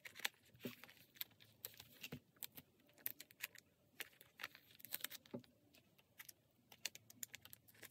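Near silence: room tone with faint, scattered clicks and light rustles.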